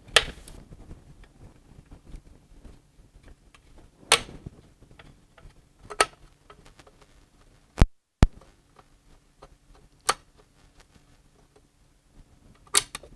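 The white plastic top cover of a Controlli MVE515 valve actuator being handled and lifted off: a few separate clicks and knocks about two seconds apart, over a faint steady low hum.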